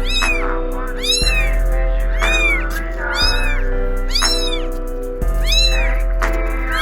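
Kitten meowing over and over, short high calls about once a second, each rising and falling in pitch, over background music.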